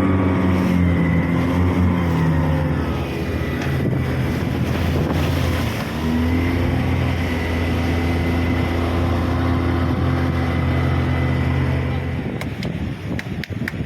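A fishing boat's motor runs under way with wind on the microphone. Its note drops in the first few seconds, picks up again about six seconds in and holds steady. It is throttled back and dies away about twelve seconds in.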